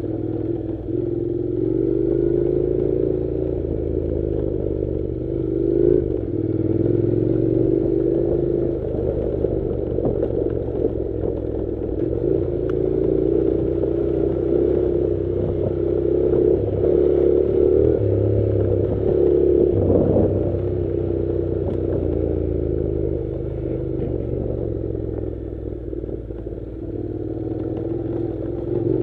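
Honda NC700's parallel-twin engine running as the motorcycle rides a rough dirt track, its note rising and falling with the throttle, with clattering from the bike over loose stones.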